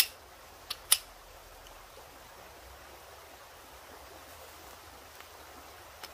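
Folding camp stool being opened: two sharp clicks of its legs and frame in the first second, with a fainter click near the end. Under it, the steady rush of a creek.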